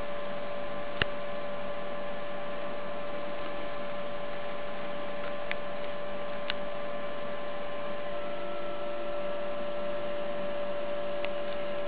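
Steady electrical hum with a constant tone, with a few faint clicks scattered through it.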